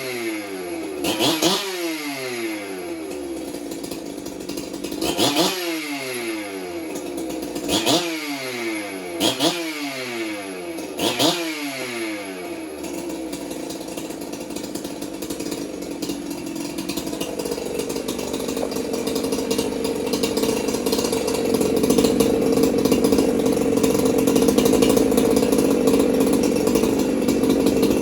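Freshly rebuilt Jonsered 2065 two-stroke chainsaw running after its first start: the throttle is blipped five times in the first half, each rev falling away again, then the saw idles steadily, its idle rising a little and getting louder in the second half.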